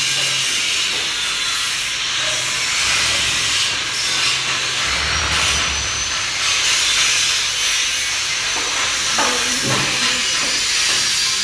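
Vibrating concrete block press machine running, its vibrator shaking the mould, heard as a steady, loud hissing noise.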